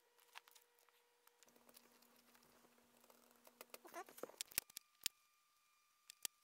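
Faint handling noises on a workbench: light scratching and rustling, then a few sharp small clicks in the second half, over a faint steady hum.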